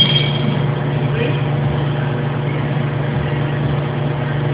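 Steady low machine hum from shop equipment, with a metallic ring dying away at the very start.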